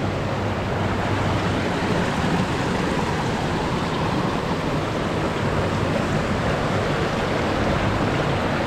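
Steady rush of creek water flowing.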